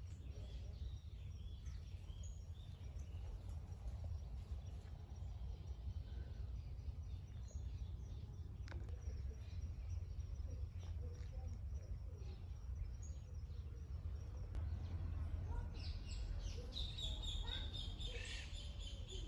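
Birds chirping and calling, the calls busiest near the end, over a steady low rumble.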